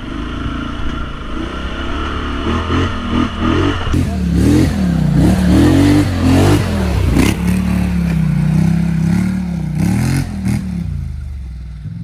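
Polaris Sportsman XP 1000 ATV engine running steadily at first, then revving up and down again and again from about four seconds in as the ATV climbs a rough trail, its loudest stretch, before settling steadier near the end.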